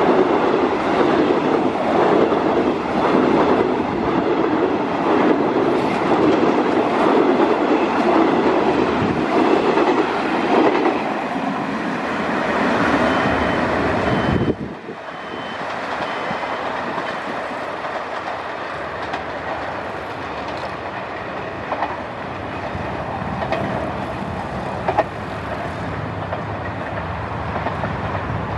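Passenger train coaches running past close by at speed, a loud rhythmic rolling sound of wheels on rails. About halfway through the sound drops suddenly to a quieter, steady rolling sound of the train moving away in the distance.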